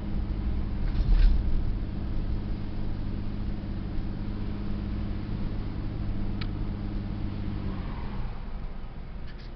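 Car engine and road noise heard from inside the cabin while driving: a steady low drone, with a thump about a second in. The drone drops away near the end, leaving a quieter hiss.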